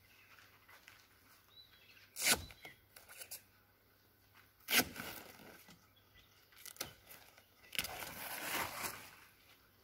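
Straps on a roof-mounted Rhino Rack Batwing awning being undone: a few sharp clicks about two, four and a half and seven seconds in, then a scratchy rasp lasting about a second and a half as the awning's cover and fabric are pulled open.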